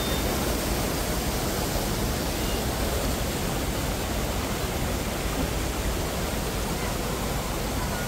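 Shallow river water rushing steadily over rock ledges and small cascades.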